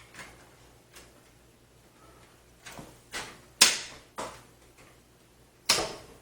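Plastic drive tray being pushed and slid into its mount on a PC case, giving a series of short clicks and knocks, the sharpest a little past halfway and another near the end.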